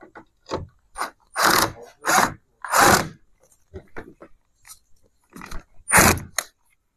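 A 10.8 V cordless drill-driver driving screws into a door handle's rose, in a string of short bursts with small clicks between them, the loudest from about one and a half to three seconds in and again near six seconds.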